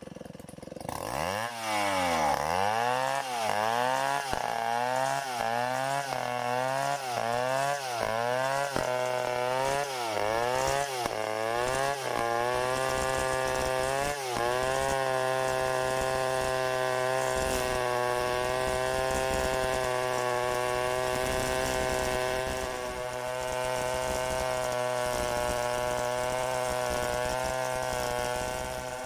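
Stihl 070 two-stroke chainsaw starting up and being revved in repeated quick blips, about one a second. About halfway through it is held at a steady high speed.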